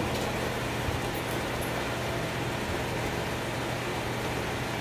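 A fan running steadily: an even hiss over a low hum.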